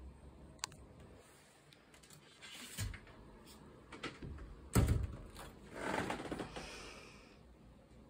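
Handling noises from a box fan as its carry handle is gripped and the fan is moved: a few light clicks, a thump about three seconds in, a sharper knock just before five seconds (the loudest sound), then a second or so of scraping and rustling.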